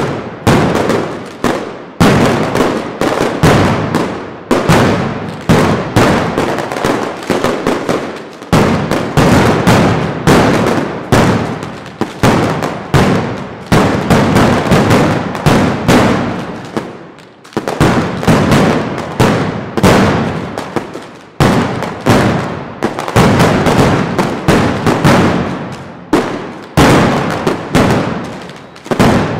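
Mascletà: strings of masclets (Valencian firecrackers) hung on overhead wires going off in a rapid, unbroken barrage of loud bangs, several a second.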